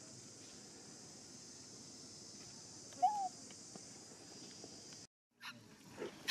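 Steady high-pitched drone of insects, with one short chirping call that rises and falls about three seconds in. The sound drops out briefly near the end, then a few louder noises begin.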